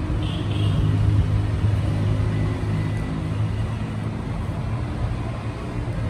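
A steady, low engine-like hum with an even pitch, loudest a second or two in and easing slightly after.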